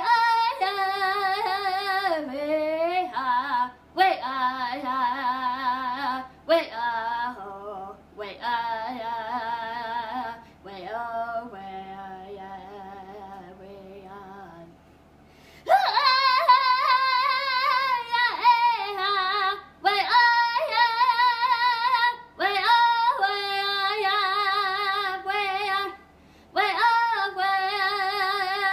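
A woman singing a powwow-style ceremonial song solo, with no drumming: long held phrases with a wavering pitch, broken by short breaths. In the middle the singing drops to a quieter, lower passage, then comes back in loud.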